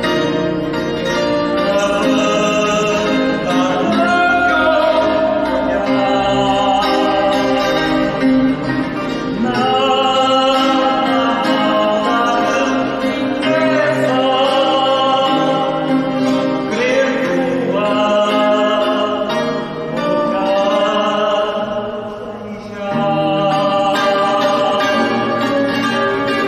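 Fado song: a male singer sings long phrases with vibrato over plucked guitar accompaniment, with a short breath between lines about three-quarters of the way through.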